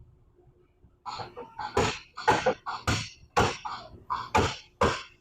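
Repeated blows on a steel car quarter panel, about two a second, as the crushed bodywork is knocked back out before the panel is replaced. The first comes about a second in, and each has a short ring.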